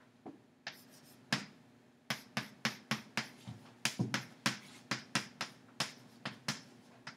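Chalk on a chalkboard writing a row of capital letters: sharp taps and short strokes, a few at first and then a quick run of about three a second from about two seconds in.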